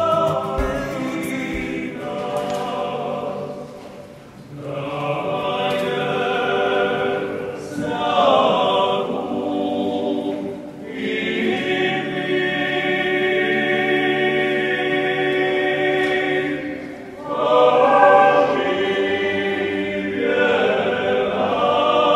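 A choir singing long held phrases, with short breaks between them.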